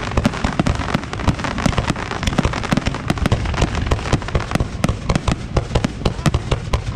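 Professional 1.3G display fireworks firing in a dense, unbroken barrage: many sharp bangs and pops a second at irregular spacing over a continuous low rumble.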